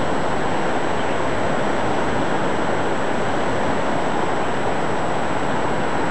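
Steady, even rushing wash of ocean surf breaking along a sandy beach.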